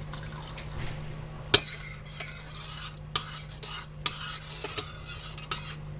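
Spoon stirring curry sauce in a pot on the stove, scraping along the pan with several sharp clinks against its side. The loudest clink comes about a second and a half in.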